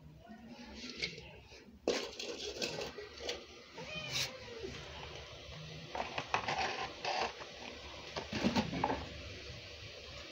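Clicks, knocks and scrapes of a spoon working through small fish in a plastic bowl of water, heaviest about eight and a half seconds in. A cat meows once about four seconds in.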